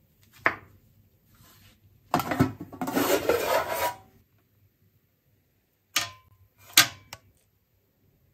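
A single knife chop through a mushroom onto a wooden cutting board about half a second in. Then about two seconds of metal clattering and scraping as a stainless-steel stovetop smoker box, its lid and its wire rack are handled. A few sharp metal clinks follow near the end.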